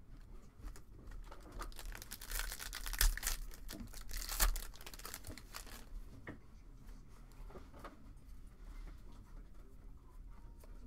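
A Topps baseball card pack's wrapper being torn open and crinkled, loudest about three seconds in and again about a second and a half later. The rustle and light clicks of the cards being slid out and thumbed through follow.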